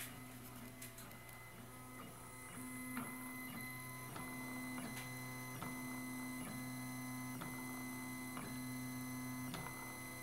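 Stepper motors of a MendelMax 1.5 3D printer whining steadily while it prints the infill of the first layer, the whine shifting at a short tick about once a second.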